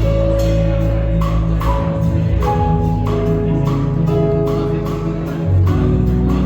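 Background music with a steady beat, short melodic notes and a sustained low bass.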